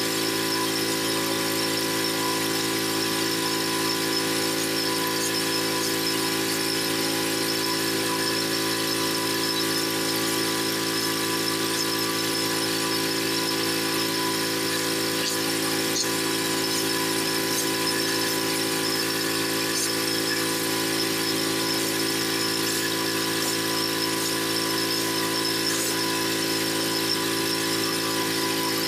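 Pressure washer running steadily, a constant whine over the hiss of water spraying from its surface cleaner onto brick pavers.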